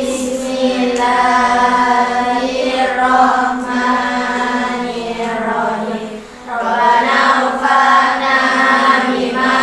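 A group of schoolgirls chanting a prayer together in unison, in long drawn-out held notes, with a brief pause for breath about six seconds in.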